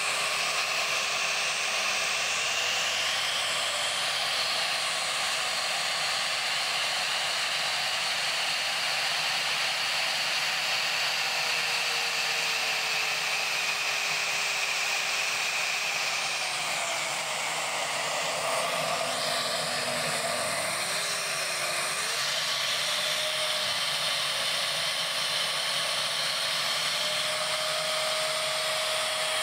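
Siemens Green Power Edition canister vacuum cleaner's motor running with its hose sealed off by a vacuum gauge, so it gets no air and screams with a loud rushing whine. Its pitch rises about two seconds in, sinks slowly past the middle, then climbs again as the power setting is changed.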